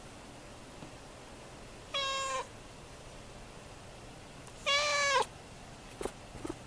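Kitten meowing twice: a short high meow about two seconds in, then a longer one a little before the five-second mark. A few small clicks follow near the end.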